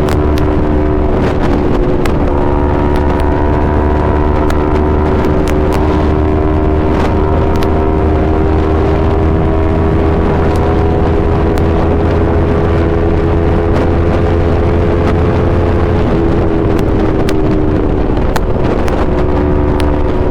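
Yamaha R3 parallel-twin engine through an Akrapovic full exhaust system, running at a steady, sustained drone. Its pitch creeps up slowly and then drops and settles about three-quarters of the way through, with some wind noise on the microphone.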